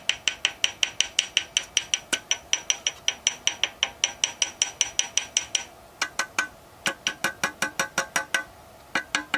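Rapid, even metallic tapping on parts of a VAZ-2109 engine, about six light taps a second, each with a short ring; the parts are struck by hand to show how a knock from each one sounds. The tapping pauses about six seconds in and resumes with a lower ring, then pauses again briefly near the end.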